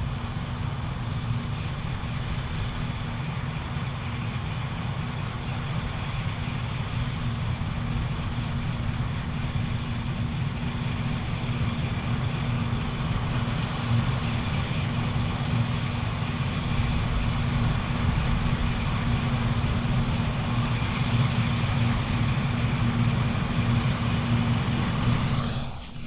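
Claas Lexion 780TT combine harvester running steadily while harvesting barley: a constant engine drone with a steady hum. It dips briefly just before the end.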